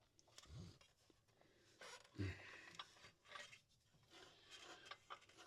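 Near silence with faint rubbing, small clicks and two light low knocks, about half a second and two seconds in, from hands working a tool and parts at the CVT clutch.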